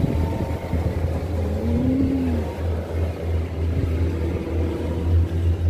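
An open gondola cabin riding up its cable, giving a steady low rumble.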